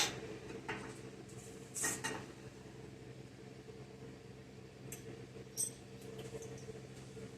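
Small metal body-mount bushing parts clinking as they are handled and fitted together: a sharp click at the start, then a few lighter clinks, over a steady low hum.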